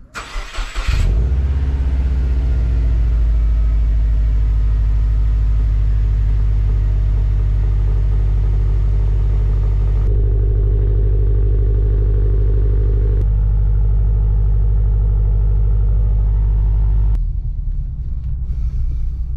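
2011 Subaru WRX's turbocharged flat-four running while driving: a steady, loud low drone that changes pitch about ten seconds in and again a few seconds later, then eases off near the end.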